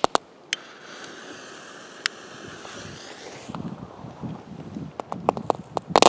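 Consumer fireworks going off: a sharp crack, then a steady hiss for about three seconds, then a run of crackling pops that grows denser and ends in a loud bang as a ground firework sprays sparks.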